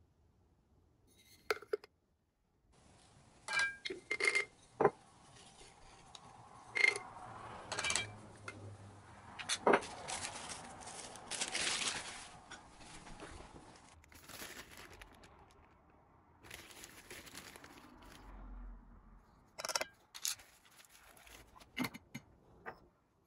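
Kitchen prep handling sounds: a series of sharp clinks and knocks, with a few seconds of rustling and tearing noise about halfway through.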